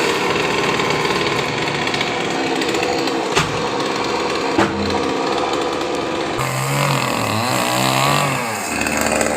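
Chainsaw running hard, cutting through a coconut palm trunk, with two sharp cracks in the middle; near the end the engine pitch sags and then rises again.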